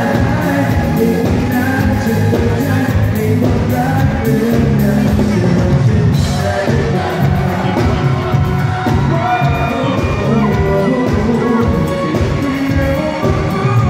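Live Thai pop song: a male singer over a full band with a steady beat, recorded from the audience.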